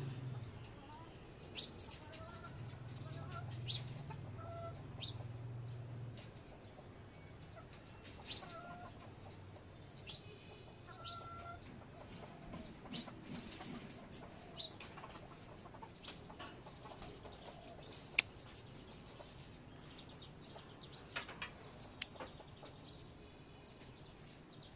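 Birds calling in the background: scattered short chirps and clucking notes. Two sharp clicks come about four seconds apart in the second half.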